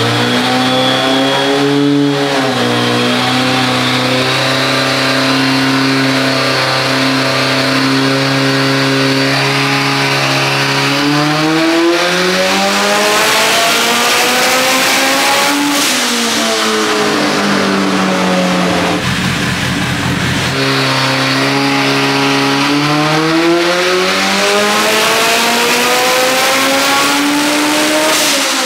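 Nissan GTi-R's billet SR20VET turbocharged four-cylinder on the dyno, making a pull on nitrous (a 150 shot). The engine holds a steady note, then climbs in revs and drops off suddenly. After a short rushing noise it climbs again to a second sudden drop near the end.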